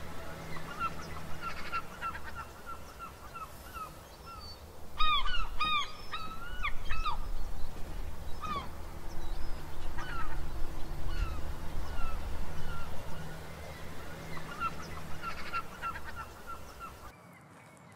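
A flock of waterbirds calling, many short repeated calls, thickest about five to seven seconds in, over a low steady rumble. The sound drops away abruptly near the end.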